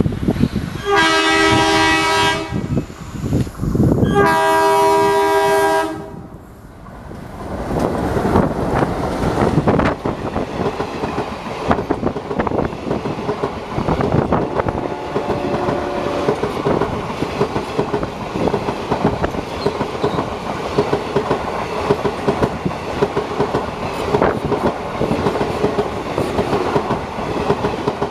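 Twin ALCo diesel locomotives sound two long horn blasts a couple of seconds apart. They pass with a heavy engine rumble, then a long rake of passenger coaches runs by, wheels clicking steadily over the rail joints.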